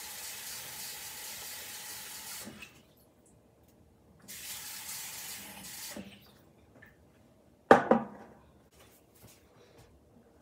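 Kitchen tap running into a glass bowl of salt cod, filling it with fresh water for soaking; the flow stops about two and a half seconds in and runs again briefly before stopping. Near the end a single loud knock as the glass bowl is set down on the stone countertop, followed by a few faint clicks.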